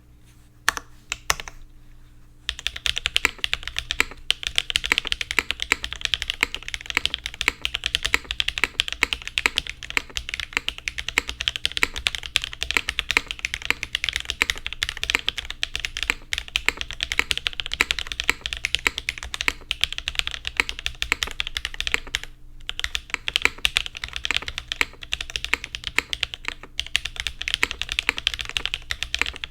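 Fast typing on a Meletrix Zoom75 custom mechanical keyboard with Gateron Smoothie switches, GMK Dune keycaps, an aluminium plate and no case foam. A few separate keystrokes come first, then a steady run of rapid key presses with two short pauses in the later part.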